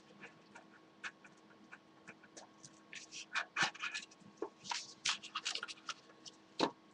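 Trading cards and their pack being handled: scattered faint rustles, crinkles and small clicks of paper and plastic, busiest in the middle and latter half, over a faint steady hum.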